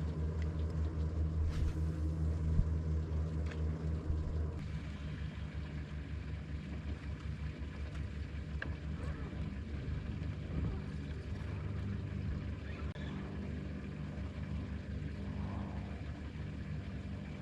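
Boat motor running steadily, a low pulsing hum that drops somewhat in level about four and a half seconds in.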